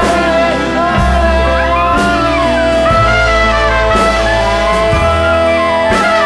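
Background music: a rock-style track with a steady beat about once a second, a low bass line and sliding melody lines over held notes.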